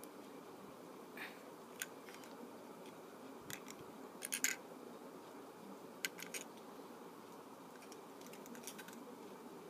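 Scattered light clicks and taps of fingers handling a small die-cast toy tow truck, over a faint steady hiss. The loudest little cluster of clicks comes about four and a half seconds in.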